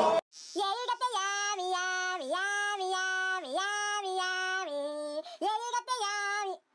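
A single high voice singing a slow tune of long held notes, mostly on one pitch, dipping briefly in pitch between notes. It stops shortly before the end.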